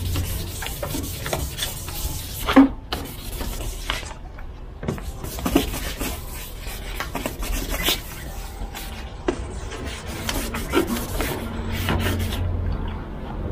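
Sandpaper being rubbed by hand over a plastic headlight lens in uneven back-and-forth rasping strokes, with a few sharper scrapes. This is the fine 2000-grit sanding pass that takes off the lens's yellowed, hazy surface.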